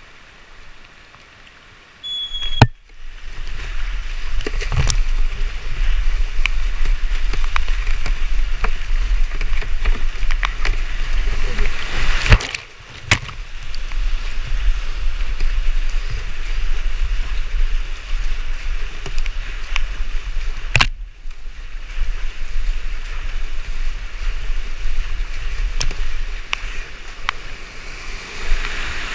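Whitewater rushing and splashing around a kayak racing down rapids, with paddle strokes and a low rumble throughout. It is quiet at first; after about two seconds a short high beep and a sharp knock come, and the rush of water rises. Several sharp knocks break through the water noise, and it drops out briefly about two-thirds of the way through.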